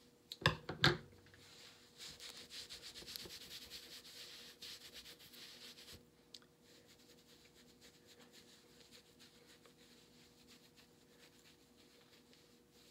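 Hands rubbing and ruffling through short, freshly cut hair for about four seconds, after two sharp knocks about half a second in.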